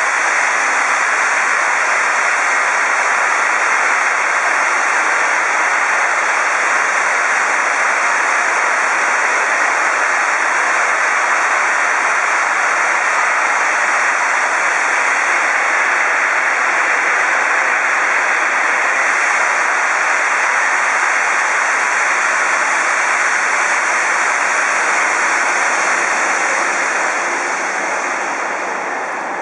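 DR Class 23.10 (35.10) 2-6-2 steam locomotive venting steam: a loud, steady hiss that eases off near the end.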